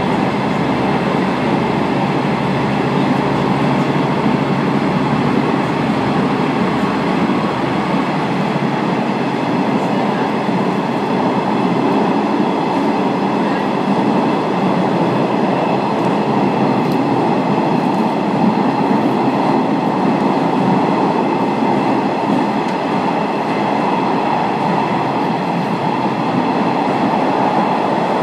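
Passenger train running steadily along the line, heard from inside the car: an even rumble of the running gear on the rails, with a faint steady drone underneath and no change in pace.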